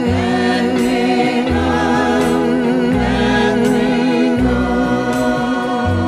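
Recorded ballad playing back over a hi-fi system: held, choir-like vocal harmonies with vibrato over a bass line that changes every second or so, with a light high accent about every second and a half.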